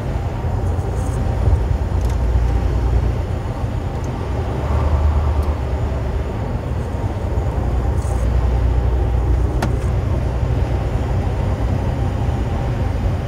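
Diesel semi-truck engine running steadily at highway speed, heard from inside the cab as a low drone with road and tyre noise.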